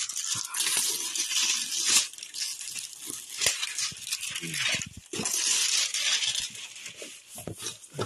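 Packaging being handled as a long cardboard box is opened: rustling and crinkling of a packing sheet and cardboard sliding and scraping in irregular surges, with a few light knocks.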